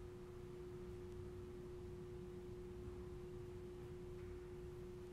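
A faint, steady hum at one constant pitch, with a weaker second tone just above it, over a low rumble of room noise.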